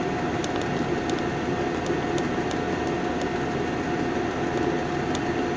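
Diesel air heater running: a steady rush of blower and burner with a constant hum and a few faint ticks.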